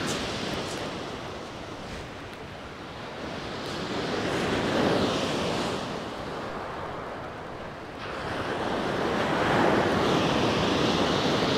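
Surf breaking on a shingle beach, swelling twice, about halfway through and again near the end, with wind buffeting the microphone.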